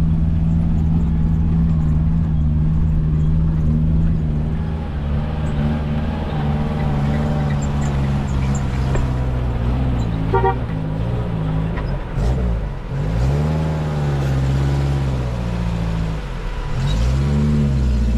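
A vehicle engine running steadily, then its pitch dipping and rising several times in the second half as the vehicle slows and speeds up.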